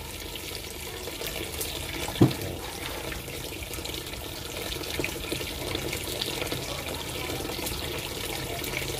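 Kitchen tap running in a steady stream into a plastic basin of water, splashing over fruit being rinsed. A single short thump about two seconds in.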